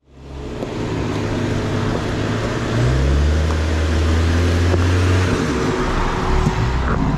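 Ford Bronco's engine pulling under load as it crawls over trail rocks. It fades in, revs up and gets louder about three seconds in, and eases off a little after five seconds.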